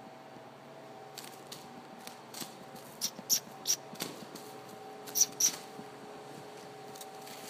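Sharp tongue clicks, a person clucking to urge a young pinto horse to move: a few faint clicks, then three loud ones in quick succession and two more about a second and a half later, over a faint steady hum.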